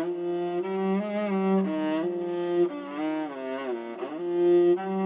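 Background soundtrack music: a slow melody that slides between notes, played over a sustained low note.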